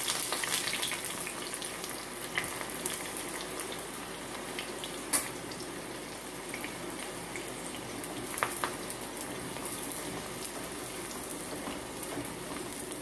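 Sliced onions deep-frying in hot oil in a kadai: a steady sizzle full of crackles, loudest in the first second just after the onions go in, with a few sharp clicks.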